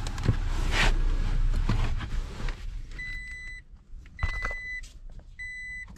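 Rustling and knocks of someone settling into a pickup cab. Then three steady electronic beeps, each about half a second long and a little over a second apart.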